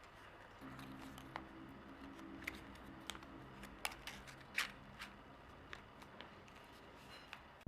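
Paper being folded and creased by hand: scattered crisp ticks and soft crackles, the loudest about halfway through. A faint low hum starts about half a second in.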